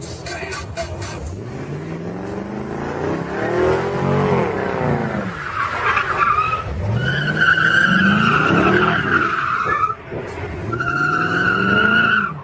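Chevrolet Corvette C5's V8 revving up and down over and over as the car spins and slides, with its tyres squealing in two long stretches from about halfway through.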